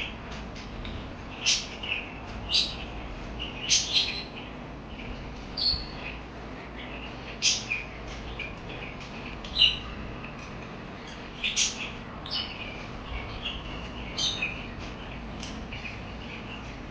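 Parakeets chirping: about a dozen sharp, high chirps at irregular intervals, with softer warbling chatter between them.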